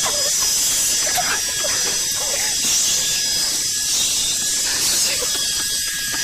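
Miniature remote-control toy helicopter hovering, its small electric motor and rotor blades giving a steady high-pitched whine.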